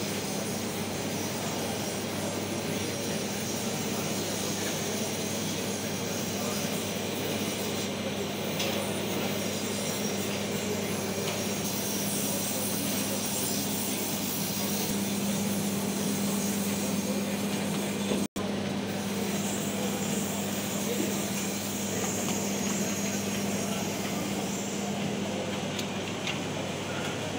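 Steady background noise of an electronics assembly floor where circuit boards are soldered: a constant low hum under an even hiss, with a brief cut-out about two-thirds of the way through.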